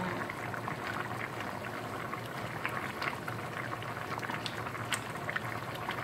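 Thick tomato and ground-beef spaghetti sauce bubbling in a pot as a wooden spoon stirs it: a steady wet simmer with many small pops.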